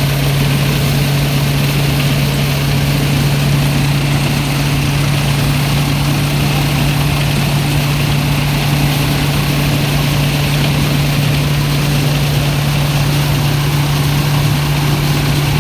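Mobile rice threshing machine running steadily under its engine, a constant loud hum with an unbroken mechanical noise over it.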